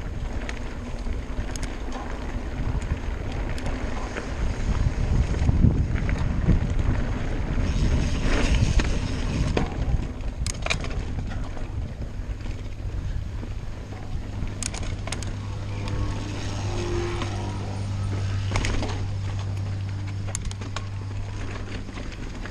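Mountain bike ridden over a dirt and stony trail: tyre and wind rumble on the microphone, with sharp clicks and rattles as the bike hits stones. A steady low hum joins about halfway in.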